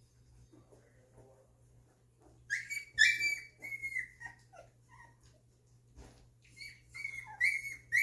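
Two-week-old golden retriever puppies whimpering and squealing in high, squeaky cries. A cluster of cries starts about two and a half seconds in, and another comes near the end.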